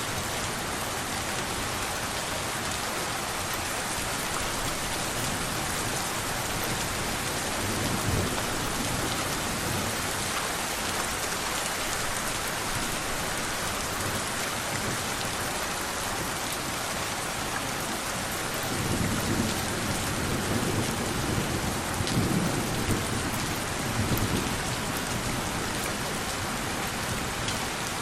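Steady rain hiss, with low thunder rumbles swelling under it: one brief rumble about a third of the way in and a longer spell of rolling rumbles late on.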